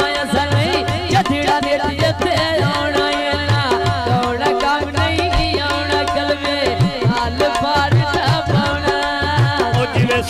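Live folk song amplified through a sound system: a woman singing into a microphone over hand-drum accompaniment, the drum keeping a steady beat.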